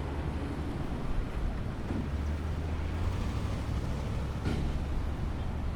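City street traffic: a steady low rumble of vehicle engines and road noise, with a brief sharp click or knock about four and a half seconds in.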